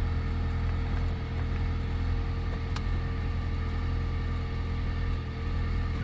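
2020 Ford Edge engine idling steadily after an oil change, the oil pressure light out. A single faint click about halfway through.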